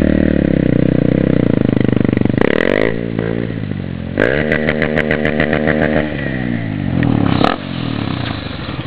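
Motorcycle engine running at high revs, dropping off about two and a half seconds in, revving up sharply again at about four seconds and winding down after six, with a brief sharp noise near the end.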